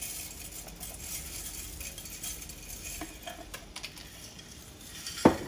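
Pot of water at a boil, a steady faint hiss, then near the end two sharp clattering knocks as dry pasta noodles are tipped from a glass measuring cup into the pot.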